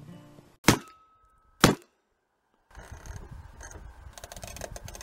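Two sharp cracks about a second apart, the reports of a pellet air rifle. Then a run of small clicks and scraping as a screwdriver turns the rifle scope's adjustment screw, with the end of an acoustic guitar tune fading out at the very start.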